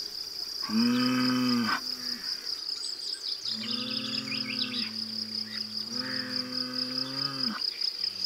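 Fighting bulls mooing: a short call about a second in, then longer, drawn-out mooing from the middle until near the end. Crickets chirp steadily underneath.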